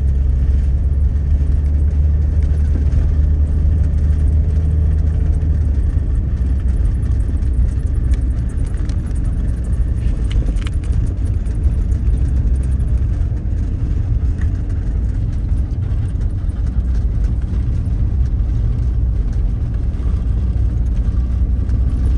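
Car driving along a road: steady low engine and tyre rumble, the engine note easing off after about five seconds.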